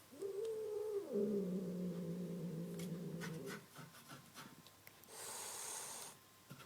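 Angry domestic cat giving a low, drawn-out growl that starts as a yowl and drops in pitch, lasting about three and a half seconds. About a second and a half later comes a short hiss.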